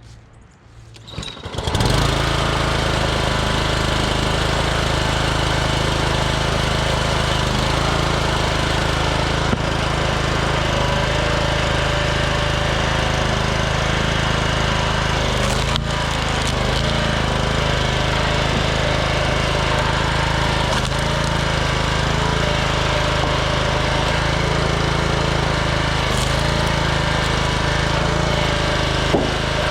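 Small gas engine of a 27-ton Troy-Bilt log splitter, which comes in about two seconds in and then runs steadily, with a few faint knocks.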